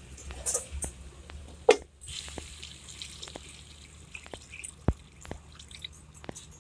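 Water poured from a plastic jug into a steel kadai of cooking chicken pieces, with scattered sharp clicks and a short loud clatter about a second and a half in.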